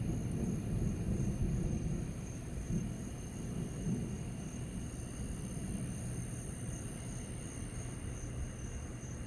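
Distant thunder rumbling low and steadily during a lightning storm.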